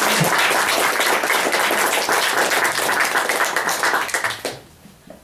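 Audience applauding, dense hand clapping that dies away about four and a half seconds in.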